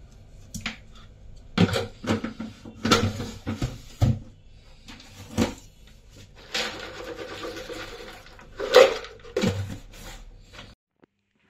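Chocolate-filled cereal pillows poured from a plastic container into a steel bowl of oats, with several sharp clatters and knocks as the container is handled, a few seconds of steady rattling pour, and a loud clink near the end.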